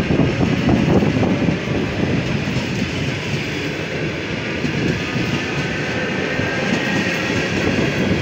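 Electric multiple unit passing close by, its wheels rumbling steadily on the rails and clacking over the rail joints.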